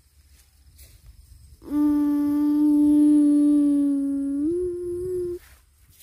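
A person's voice holding one long hummed note, starting about two seconds in, stepping up to a slightly higher note near the end and then cutting off.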